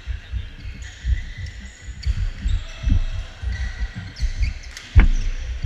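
Badminton players' footfalls thudding irregularly on a wooden sports-hall floor, with faint shoe squeaks and one loud, sharp smack about five seconds in.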